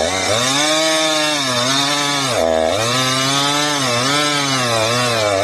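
Small top-handle chainsaw cutting through a tree trunk, running at high speed. Its pitch sags several times as the chain bites into the wood, dropping furthest about two and a half seconds in before recovering.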